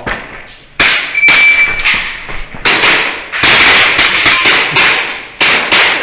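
A string of sharp cracks from an airsoft gas handgun firing, with metallic hits on targets, several in quick succession in the middle and single ones around them. A short steady high-pitched tone sounds about a second in.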